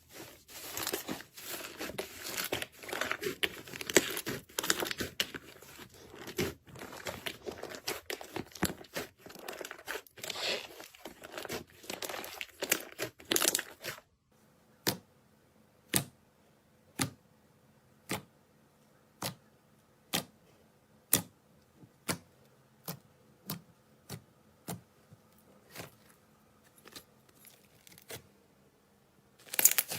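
Slime being squished and stretched, giving dense crackling, crinkly pops. About halfway through this stops, and single sharp clicks or pops follow about once a second. The dense crackling starts again near the end.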